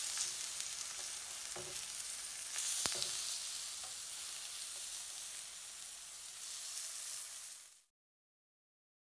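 Aubergine slices sizzling in a grill pan, with a couple of short knocks as tongs turn them against the pan. The sizzle cuts off suddenly near the end.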